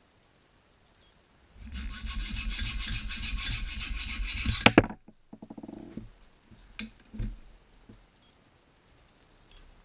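Hacksaw sawing a corroded metal bolt on a porcelain toilet tank with fast back-and-forth strokes. The sawing starts after a quiet second and a half and stops sharply about five seconds in. A few light knocks follow.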